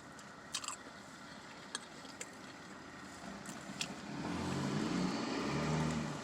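Small scattered clicks over a low background, then from about four seconds a motor vehicle's engine swells up as it goes by and fades again just before the end.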